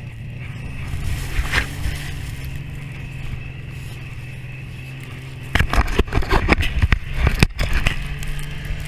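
A vehicle engine running with a steady low hum. About two-thirds of the way in, loud irregular rumbling and crackling joins it and carries on to the end.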